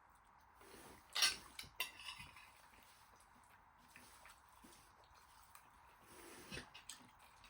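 Cutlery clinking and scraping against plates while eating, a scatter of light clicks with the loudest about a second in.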